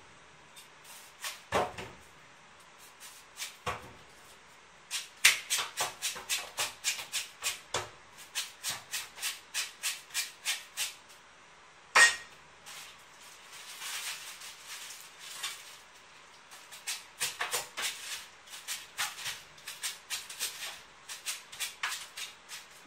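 Quick, even scraping strokes of a blade peeling the skin off a fruit, about two a second in two runs, with a single sharp knock about halfway through.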